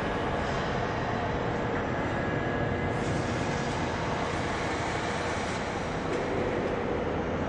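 Steady factory-floor noise of a car assembly line: a continuous mechanical rush and hum of machinery and conveyors, with a faint steady whine.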